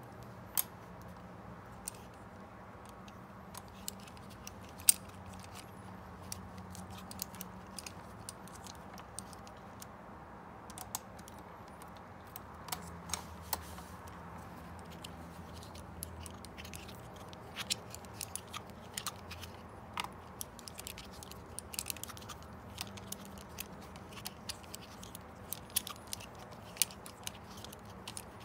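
Irregular small metallic clicks and ticks of a hex key and folding multi-tool being fitted to and turned in bicycle handlebar bolts, the sharpest click about five seconds in, over a faint steady low hum.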